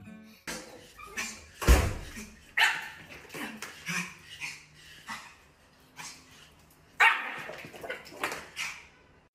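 A small dog barking and yipping in short, irregular bursts, with a loud thump a little under two seconds in.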